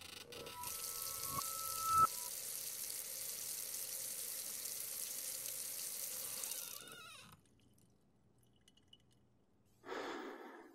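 Bathroom sink tap running steadily for about six seconds, then shut off. There are a few brief high tones near the start and a short rush of noise near the end.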